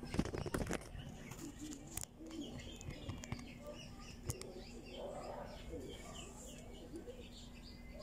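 Small birds chirping in the background, many short high calls scattered throughout. In the first second there are louder knocks and rustling, and a faint steady hum sits underneath.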